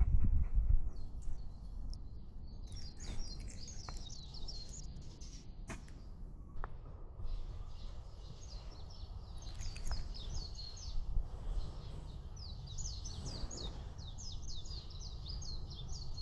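Small birds chirping in quick runs of short, falling high notes, in several bursts, over a steady low rumble.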